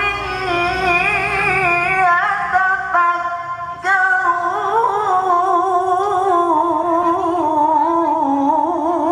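A man reciting the Quran in the melodic tilawah style, singing a long melismatic phrase with wavering ornaments on held vowels. There is a short break about four seconds in, and the line sinks slowly in pitch after it.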